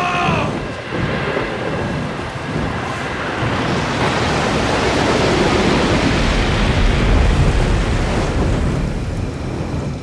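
A large building fire burning, with a dense rushing noise over a deep low rumble that swells louder towards the middle. The tail of a man's held shout ends in the first half-second.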